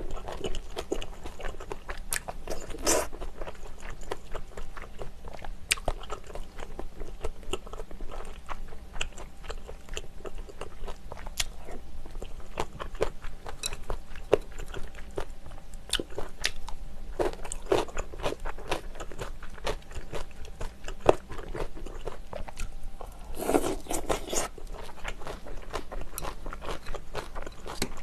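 Close-miked eating: chewing and crunching on spicy sundae soup and kimchi, with many short sharp clicks scattered throughout and a few longer, louder bursts, over a steady low hum.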